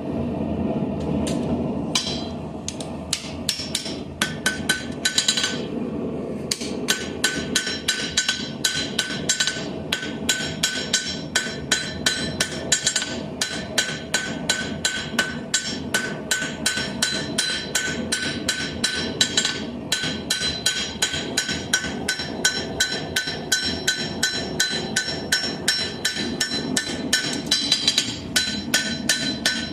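Blacksmith's hammer striking steel on an anvil in a fast, steady rhythm of about three blows a second, drawing out a tapered horn, with a metallic ring carrying between blows. A steady low rumble runs underneath.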